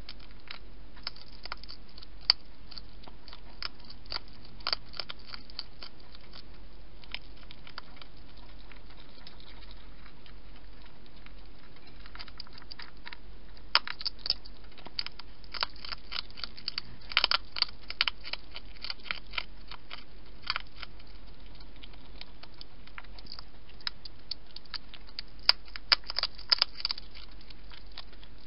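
A wild European hedgehog eating, its chewing heard as irregular crunchy clicks. The clicks come sparsely at first and in dense runs around the middle and near the end.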